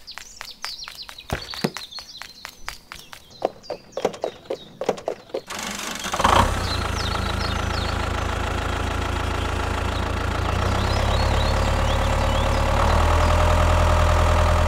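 A run of irregular sharp clicks and taps, then about six seconds in a tractor engine starts with a thump and runs steadily, growing louder twice toward the end.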